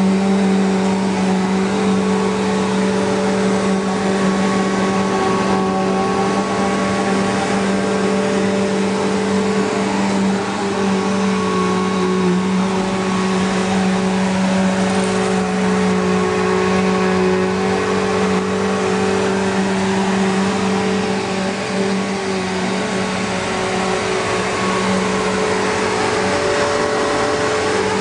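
Bissell PowerGlide Platinum (3545-2) upright vacuum cleaner running steadily, its motor giving a strong, even hum with a whirring noise over it.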